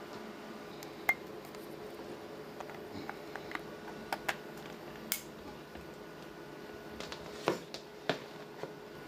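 Irregular small clicks and taps as a white plastic junction box and its cable connectors are handled, the loudest late on, over a steady low hum.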